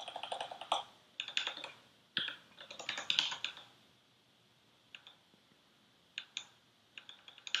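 Computer keyboard typing: quick runs of keystrokes for the first three and a half seconds, then a few single keystrokes spaced out.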